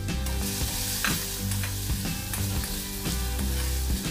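Minced garlic sizzling in hot oil in a hammered metal saucepan, stirred with a metal spoon that scrapes and taps the pan bottom over and over.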